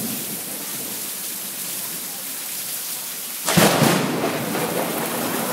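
Heavy rain falling steadily, then a sudden loud crack of thunder about three and a half seconds in that carries on as a rumble.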